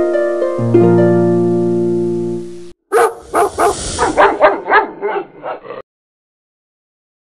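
A dog barking rapidly, about ten quick barks in three seconds, following a plucked harp-like music chord that cuts off. The barks stop abruptly and are followed by total silence.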